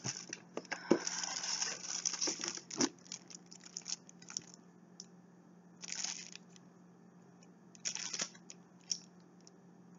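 Packaging being handled and torn open, with crinkling and tearing in bursts. The longest stretch comes in the first three seconds, with shorter bursts about six and eight seconds in.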